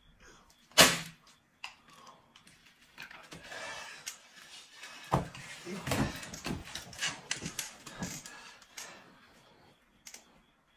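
A single sharp slap of a plastic slipper against a bare thigh about a second in, followed by scattered softer knocks and shuffling.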